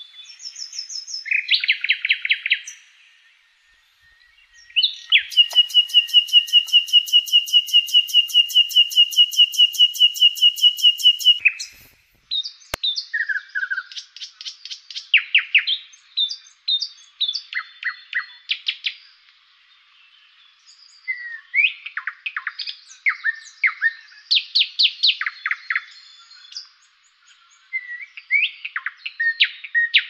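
Songbirds singing short chirped and whistled phrases. About five seconds in comes a long, fast, even trill of roughly five pulses a second, lasting some six seconds. A single faint click follows just after the trill stops.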